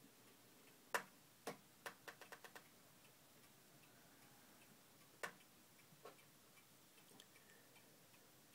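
Miniature longcase clock movement: a few sharp clicks followed by a quick run of about six small clicks as the clock is handled, another sharp click a few seconds later, then faint ticking.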